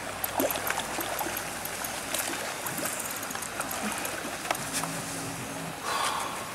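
Water splashing and trickling with scattered sharp clicks as a large fish is lifted from the lake onto the bank. A short louder splash comes near the end, over a low pulsing drone in the background.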